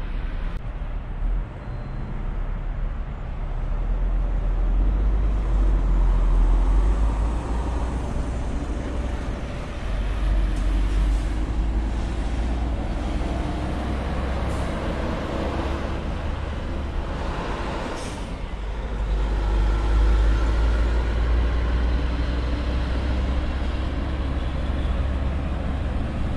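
Diesel semi-trucks pulling trailers slowly past, their engines running with a low rumble that swells twice as trucks go by, and a brief hiss about two-thirds of the way in.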